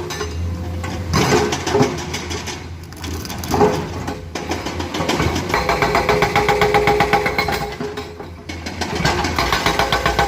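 Komatsu hydraulic excavator's diesel engine running under working load, its level rising and falling as the machine works. There are a few brief knocks in the first four seconds. The engine gets louder about halfway through and dips briefly near the end.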